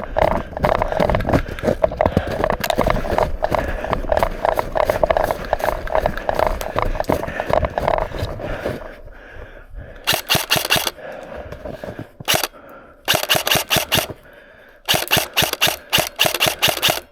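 Dense, irregular crunching of footsteps moving quickly through snow for about the first nine seconds. Then four bursts of rapid full-auto airsoft fire, each a fast string of sharp clacks.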